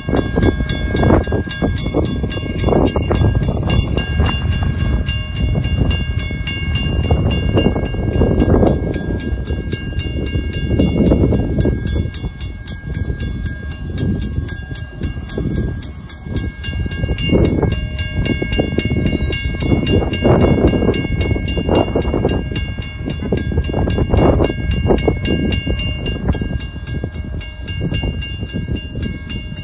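Mechanical grade-crossing bell (WCH, first generation) ringing with fast, even strokes and a steady ring throughout, over an irregular, surging low rumble.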